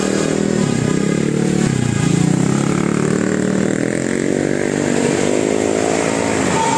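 Engine of a passing road vehicle revving, its pitch dipping twice and then climbing steadily for a couple of seconds, over steady traffic noise.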